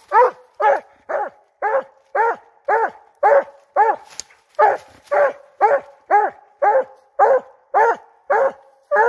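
Redbone coonhound barking treed: a steady run of short barks, about two a second, each dropping in pitch, with one slightly longer pause just after the middle. It is a hound's tree bark, the sign that a raccoon is up the tree.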